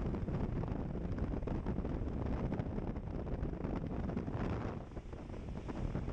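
Wind buffeting the microphone aboard a moving boat: a gusty low rumble that eases briefly about five seconds in.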